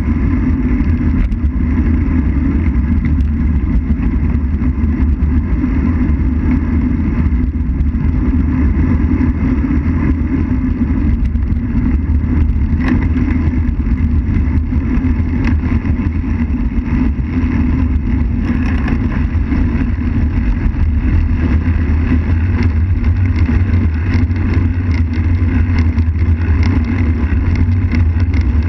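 Steady wind rush over the microphone and tyre rumble on asphalt, picked up by a camera mounted on a road bike's handlebars while riding.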